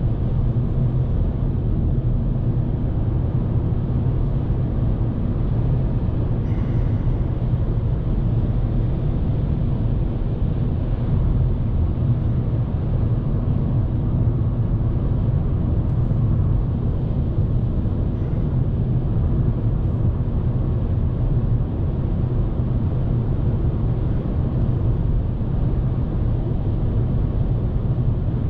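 Steady in-cabin noise of a 2019 Volkswagen Polo 1.0 TSI on the move: its three-cylinder turbo petrol engine with road and wind noise coming through, a low rumble with a fainter hiss above it. The cabin is not very quiet, as the car's noise insulation is not great.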